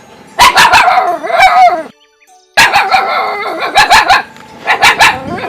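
A dog barking hard in three bouts of rapid, loud barks with short pauses between them.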